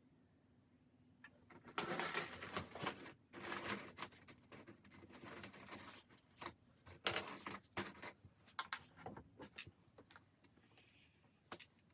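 Sped-up handling sounds from curling a wig: quick irregular rustling of hair and sharp clicks, likely from the curling iron and clips, in clusters through the middle of the stretch.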